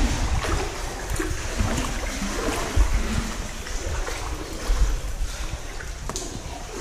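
Seawater lapping and sloshing against a sea kayak's hull and the rock walls of a narrow channel as the kayak moves through, with a couple of dull low thumps about three and five seconds in.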